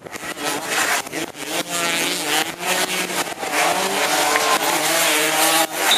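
Several racing engines revving at once, their pitches rising and falling against one another.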